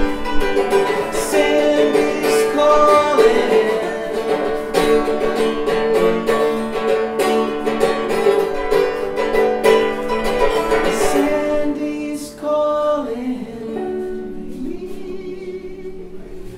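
Cümbüş, a Turkish banjo-like lute with a metal bowl, being strummed in a run of chords. The playing thins out about twelve seconds in, and the last chord fades away near the end.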